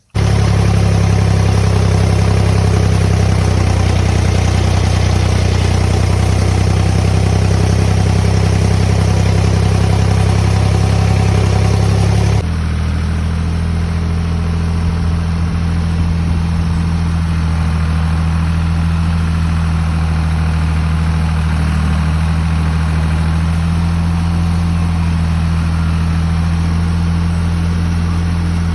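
An engine running steadily at idle, a deep, even drone. About twelve seconds in it changes abruptly to a slightly quieter, lower note and runs on steadily.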